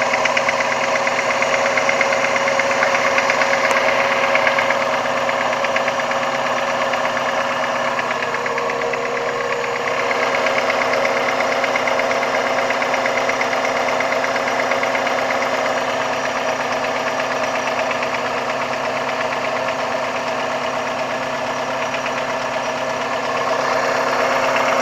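Opel Vectra C's Z22SE 2.2-litre four-cylinder petrol engine idling with a fast, even ticking knock from the exhaust camshaft side. The owner hears the knock only from cold after an engine rebuild and likens it to a hydraulic lifter, not the timing chain, which is new.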